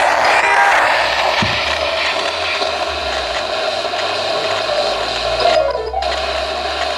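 Steady radio static hissing from a ghost box radio, with the hiss briefly muffled about a second before the end.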